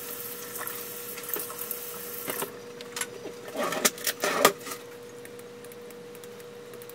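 Kitchen tap running in a steady hiss, shut off about two and a half seconds in, followed by a few sharp knocks and clatters, the loudest two near the middle. A faint steady hum runs underneath.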